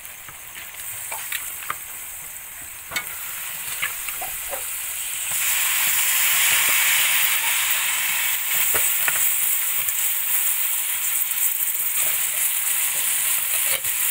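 Raw chicken pieces going into hot oil and browned onion-spice masala in a pan, sizzling. Before that there are a few light clicks. About five seconds in, the sizzle jumps much louder and then stays loud.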